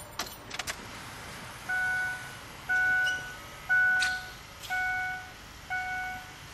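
Keys clicking at the ignition, then a Ford 6.0L Powerstroke truck's dashboard warning chime sounding as the key is turned on: a short steady ding about once a second, five times.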